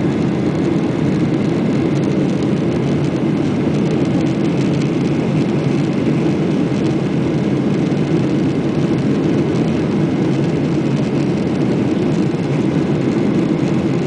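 Boeing 737-800 jet engines (CFM56-7B turbofans) and airflow during takeoff: a steady, loud low rumble that holds even throughout without rising or falling.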